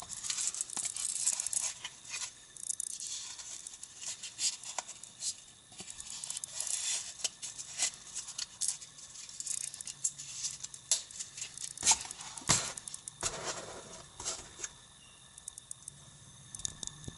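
Black nylon knife sheath rustling and scraping with sharp clicks as a full-tang hunting knife is handled, slid into it and its retaining strap fastened.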